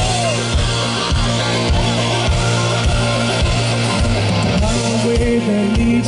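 Live rock band playing through a large outdoor PA, heard from the crowd: a steady kick drum at about two beats a second under a held bass note, with a pitched melodic line coming in near the end.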